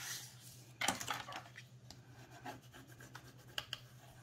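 Heavy white cardstock being slid and turned on a cutting mat by gloved hands: a few faint scrapes and rustles of paper, the clearest about a second in.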